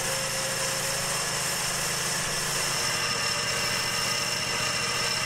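The sawmill's 23-horsepower Briggs & Stratton Vanguard V-twin engine running at a steady speed, with a thin steady high whine above it.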